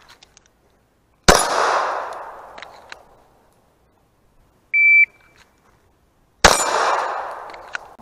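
Two single .45 ACP pistol shots about five seconds apart, each trailing off in a long echo. Between them a shot timer gives one short, high start beep, and the second shot follows about a second and a half after it.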